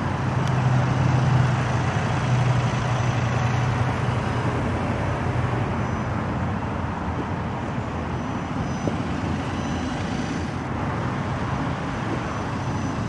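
The 2012 Volkswagen Passat TDI's 2-litre turbodiesel four-cylinder idling steadily, heard from behind the car, with a low hum that is strongest for the first few seconds and then fades, over a steady wash of outdoor noise.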